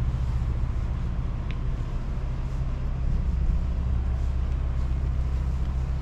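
An engine running steadily at idle: a low, even hum.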